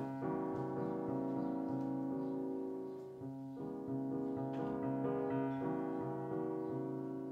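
Piano music playing sustained chords, with a short dip in level about three seconds in.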